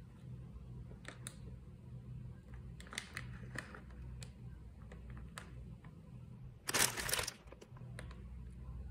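Plastic instant-noodle packet crinkling in a hand: a few small crackles, then a louder rustle about seven seconds in as the packet is turned over. A low steady hum runs underneath.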